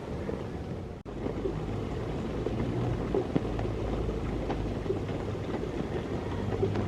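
Steady rain falling in a garden, an even hiss with scattered drips and a low rumble underneath. It cuts out for an instant about a second in.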